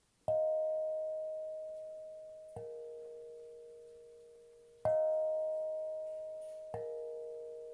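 Meinl Sonic Energy steel tongue drum struck four times, slowly, alternating between a higher and a lower note. Each note rings clear and long, fading gradually until the next strike.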